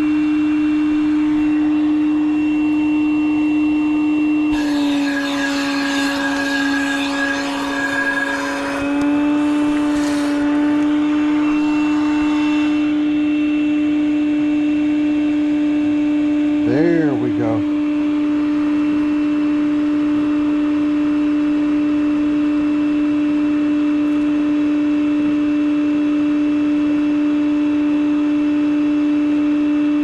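Wet/dry shop vacuum running steadily with a constant whine, hooked to an air conditioner's condensate drain line to suck out a clog. About five seconds in, its pitch dips and a rushing noise joins it for a few seconds as it pulls on the line, then the whine settles back to its steady pitch.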